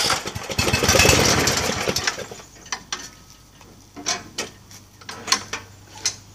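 Snapper riding mower's engine catching and running loudly for about two seconds, then dying away; it had been started while left in fifth gear instead of neutral. A few scattered clunks and knocks follow.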